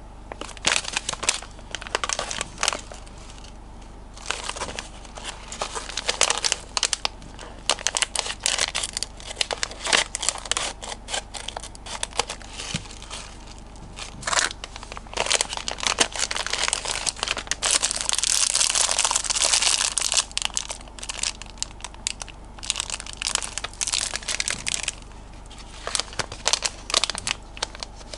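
Plastic candy pouches and the clear plastic gummy tray crinkling and crackling as they are handled and opened, in many short sharp crackles with one longer continuous rustle about two-thirds of the way through.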